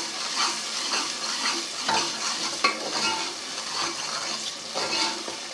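Onion, green chilli and ginger-garlic masala with turmeric and chilli powder sizzling in hot oil while it is stirred and scraped, about two strokes a second.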